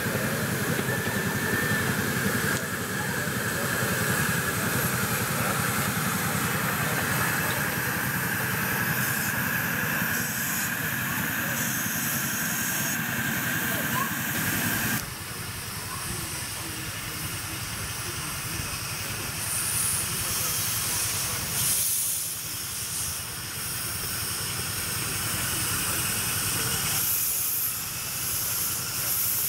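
Miniature live-steam locomotive hissing as steam escapes, a steady rushing hiss with a high whistling edge. About halfway through, the sound changes abruptly and grows quieter and rougher.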